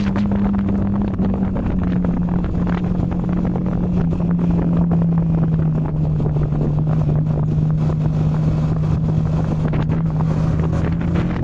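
Yamaha MT-15's 155 cc single-cylinder engine running at a steady cruise while riding, its note easing slightly lower over several seconds, with wind rushing over the microphone.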